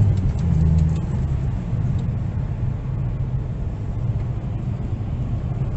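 Car engine and tyre rumble heard from inside the cabin while driving. A steady low engine hum eases off about a second in, leaving a steady low road rumble.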